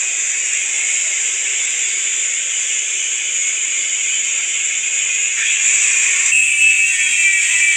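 Electric welding arc hissing and crackling steadily as a bead is run. About six seconds in, a thin whistling tone joins it.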